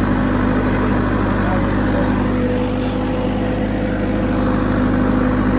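Tractor diesel engine running steadily as the tractor drives across sand.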